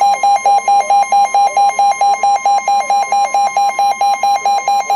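NOAA Weather Radio warning alarm: a steady high tone with a rapidly pulsing beep over it, about four to five beeps a second, signalling that a new warning is about to be broadcast.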